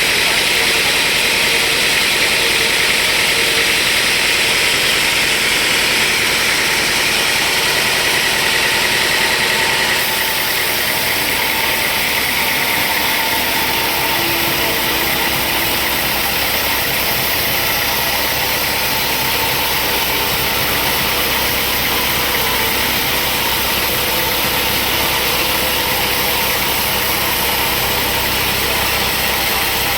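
Sawmill machinery running with a steady, loud mechanical noise; the sound shifts slightly about ten seconds in.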